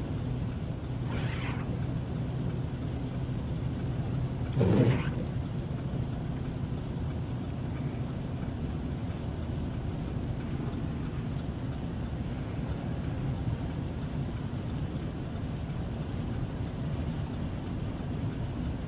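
Steady engine and road rumble of a vehicle driving, heard from inside the cab, with one brief louder swell about four and a half seconds in.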